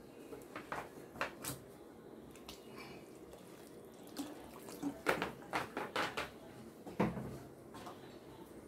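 Thick coconut-based curry gravy coming to the boil in a metal kadai, with irregular pops of bursting bubbles over a low simmering hiss. The popping grows busiest about five to seven seconds in.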